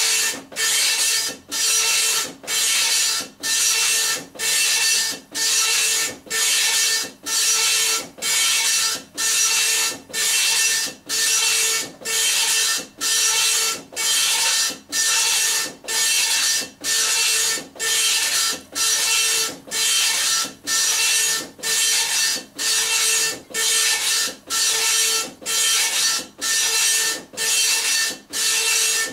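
Dot matrix printer printing a graphic, its print head buzzing across the page in steady line after line, a little more than one pass a second, with a short gap between passes.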